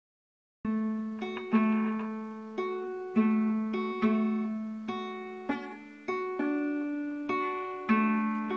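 Steel-string acoustic guitar fingerpicked in a slow repeating pattern, single notes plucked one after another, each ringing and fading. It starts out of dead silence about half a second in.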